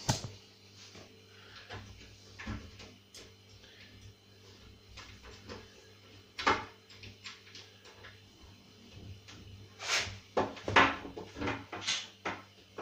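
Kitchen cupboard door being swung and handled while a metal bar handle is offered up to it: scattered knocks and clicks, with a sharper knock about six and a half seconds in and a cluster of knocks near the end.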